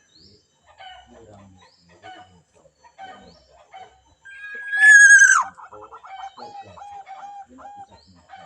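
A rooster crows once about four seconds in, a long held call that drops off sharply at the end, followed by a quick run of short clucking notes. Faint short chirps sound between.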